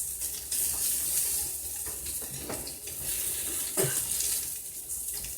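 Steady hissing kitchen noise, with a couple of brief knocks about two and a half and almost four seconds in.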